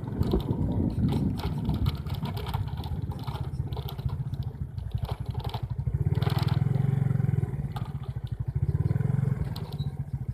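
A small engine running close by, with a fast, even pulse that grows louder twice in the second half, as when it is revved.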